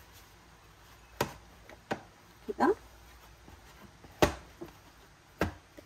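Soft bread dough being kneaded by hand and slapped down onto the work surface, four sharp separate slaps a second or more apart.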